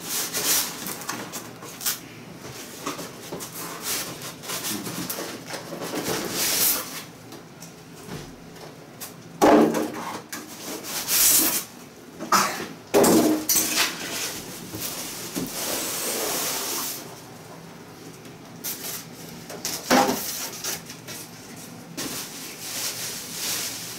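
Polystyrene foam packing inserts being worked loose and lifted out of a large cardboard TV carton: irregular rubbing and scraping of foam against cardboard, with a few louder bumps.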